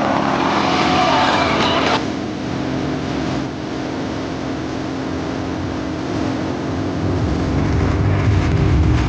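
Two MX2 aerobatic propeller planes droning in flight, a steady engine hum; the sound drops suddenly about two seconds in, and a low rumble builds near the end.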